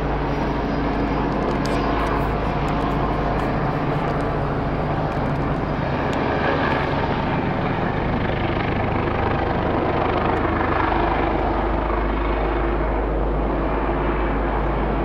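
AgustaWestland AW109 Trekker air-ambulance helicopter flying past, its rotor and turbine engines making a steady drone.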